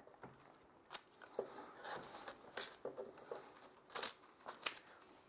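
Bench chisel paring across plywood, a series of short, quiet slicing strokes as it takes shavings out of the waste between two saw cuts.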